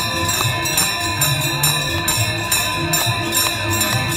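Devotional music with constant jingling, tambourine-like percussion and ringing bells over a low, shifting melody.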